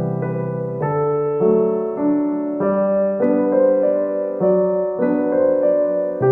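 Background piano music: a gentle keyboard tune of held notes and chords over a low bass note, changing about every half second.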